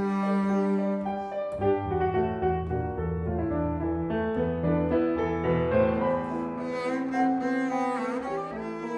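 Double bass played with a bow, with a grand piano accompanying: a melody of sustained bowed notes over piano chords, with deep bass notes through the middle of the passage.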